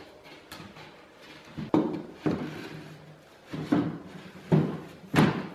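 About five wooden knocks, irregularly spaced, each with a short low ring, as a sheet of OSB is knocked and pressed into place on a wooden frame. The last is the loudest.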